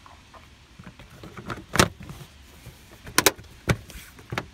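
Plastic interior trim panel being pushed back into place on a pickup truck: a handful of sharp clicks and knocks, the loudest about two seconds in and a quick double click a little after three seconds.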